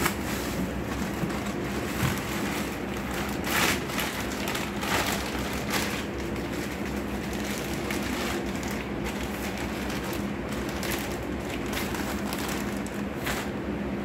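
Plastic packaging and cardboard rustling and crinkling as parts are pulled from a carton, with a few louder crackles, over a steady low hum.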